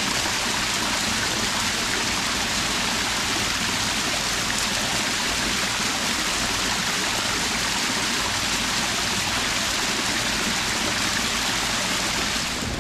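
Steady, unbroken rush of running water, as from a stream or small waterfall, easing slightly just before the end.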